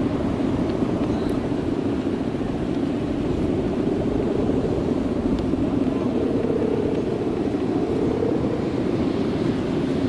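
Steady droning hum of a guangan, the bow-shaped hummer strung across a big Balinese bebean kite, vibrating in strong wind. Its pitch wavers, rising slightly around the middle.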